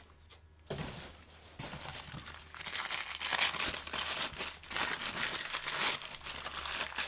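Packing paper crinkling and rustling as hands dig through a box of old tools, getting busier and louder after the first couple of seconds.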